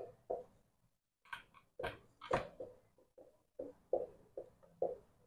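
Marker pen writing on a whiteboard: a string of short, faint strokes, about a dozen spread irregularly.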